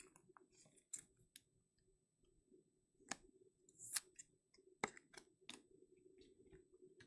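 Faint, scattered clicks and ticks of trading cards and rigid plastic top loaders being handled and set down on a stack, a dozen or so light taps spread irregularly through a quiet room.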